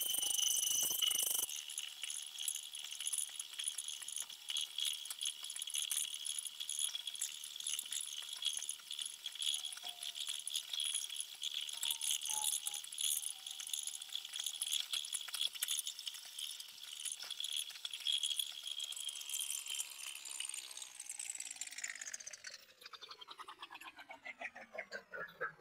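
Indexable-insert face mill on a 1960 Cincinnati Toolmaster 1B knee mill cutting metal at low spindle speed: a steady high-pitched whine with small ticks and clinks of chips, loudest in the first second and a half, where the cutter chatters before it is fully engaged. About 20 seconds in the whine falls steadily in pitch as the spindle winds down.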